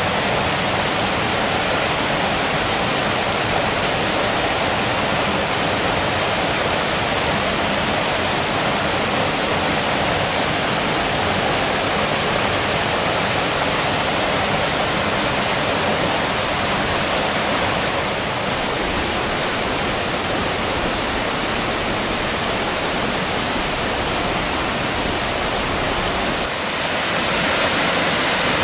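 Mountain stream rushing over rocks in a small waterfall: a steady, even rush of water. The sound shifts slightly about two-thirds of the way through and grows a little louder and brighter near the end.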